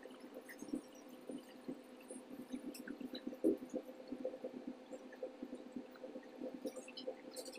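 Soft, irregular squelches and small ticks of a piping bag being squeezed, laying a whipped-cream shell border around a cake's base, over a steady hum.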